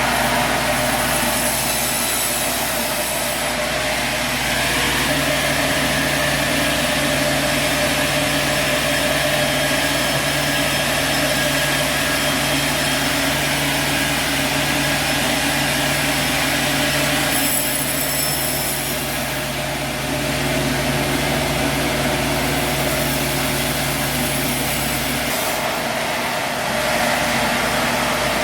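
Sawmill machinery running: a steady motor hum under an even, loud whir. A low steady tone joins about five seconds in and drops out a few seconds before the end.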